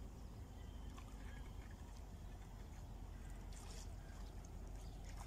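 Faint steady low rumble of wind on the microphone by open water, with a few faint ticks.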